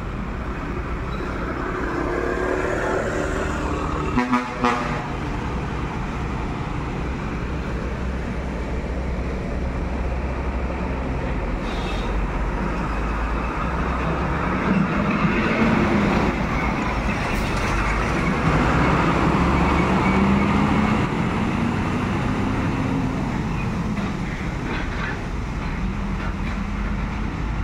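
Steady road traffic noise with vehicles passing, a low rumble throughout.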